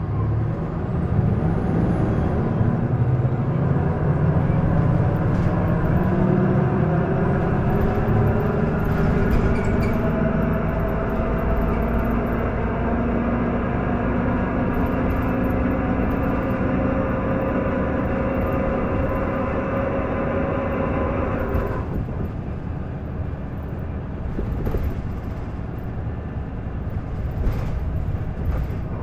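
Isuzu Erga city bus heard from inside the cabin, its engine and drivetrain pulling hard under acceleration with a whine that rises slowly in pitch. About three-quarters of the way through the whine drops off suddenly as the power comes off or the gear changes. This bus is known for an abnormal running noise that it did not make when it first entered service.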